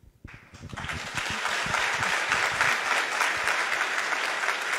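Audience applause: clapping begins just after a moment of silence, swells within about a second, then holds as steady, dense clapping from a large crowd.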